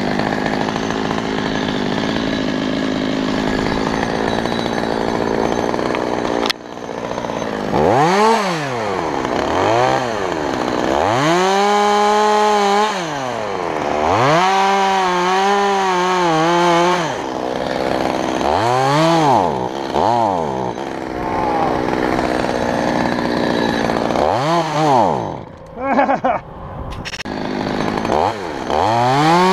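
Small Stihl chainsaw revved up and back down about eight times, some revs held for a second or two before dropping, with a sharp click before the first rev. Near the end it is brought up to full revs and held there as a cut into the oak trunk begins.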